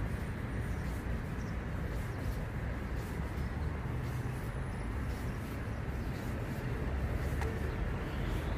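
Motorcycle engine running steadily at low revs, a low hum that shifts slightly in pitch about halfway through.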